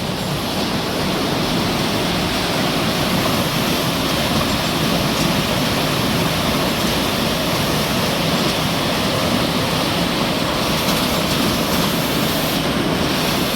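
Floodwater in a swollen stream rushing steadily, a loud unbroken roar of water.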